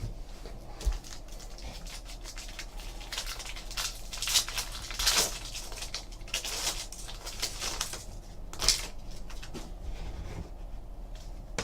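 Trading cards being handled and slid against one another: a run of soft scuffs and flicks, with louder swishes about four and a half, five, and eight and a half seconds in.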